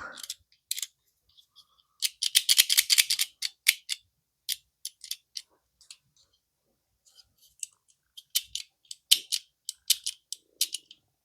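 Small hand-held Primus flint sparker being worked over and over, giving dry, light metallic clicks and scrapes in two fast runs with scattered single clicks between; it is not catching and turning properly, so it makes no proper strike.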